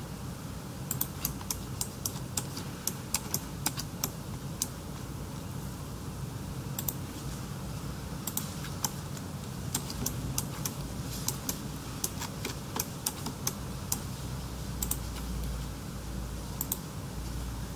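Irregular light clicks of someone working a computer's keys and buttons, some coming in quick runs, over a steady low hum.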